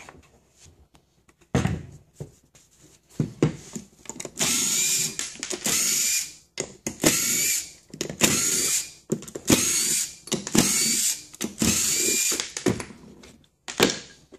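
Cordless drill run in about seven short bursts of under a second each, backing screws out of a wooden housing, after a couple of knocks as the piece is handled.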